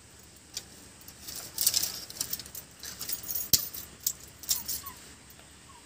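Thin dry sticks catching fire in a clay wood-burning stove (chulha), crackling and popping irregularly, with one sharp pop about three and a half seconds in.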